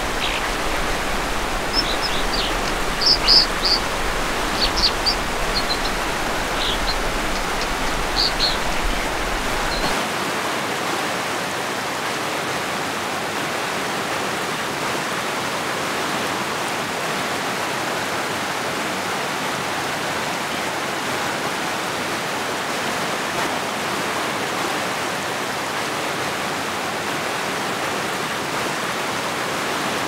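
Steady rush of a shallow creek flowing over rocks. Short, high bird chirps come in small clusters over the first eight seconds or so.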